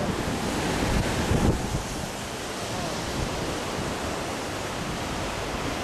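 Rough sea surf breaking on the shore, with strong wind buffeting the microphone. Louder for a moment about a second in.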